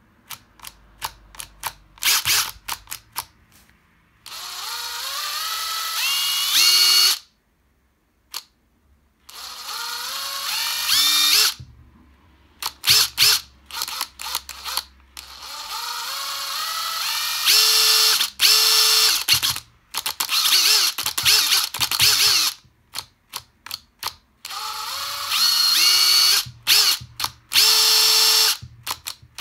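Makita TD001G 40Vmax cordless impact driver's motor spinning with no load as the trigger is pulled again and again: short blips and runs of a few seconds, each a whine that climbs in steps and cuts off sharply. The tool comes from a junk repair that is judged a failure.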